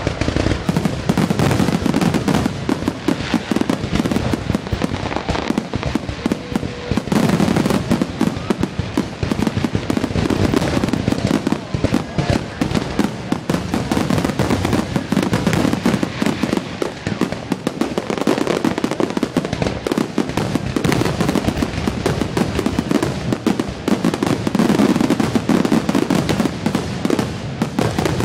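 A dense barrage of consumer fireworks: many shells and crackling stars bursting in quick, overlapping succession, without a pause.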